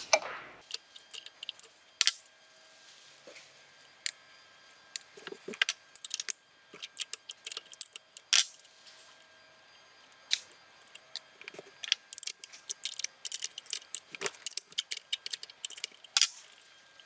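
Irregular metallic clicks and clinks from a 13 mm spanner working the nuts and bolts on a stainless steel submersible pump housing, with the loosened metal parts knocking together as they are handled. The clicks come thicker in the second half.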